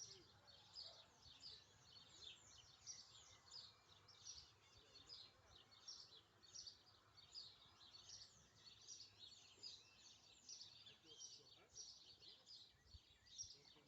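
Faint outdoor bird chorus: many small birds chirping, with short high falling chirps overlapping several times a second throughout.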